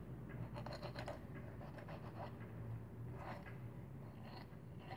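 Faint scratching of a knife blade cutting along the spine and rib bones of a pejerrey (Argentine silverside) as it is filleted from the back, in a few short bouts.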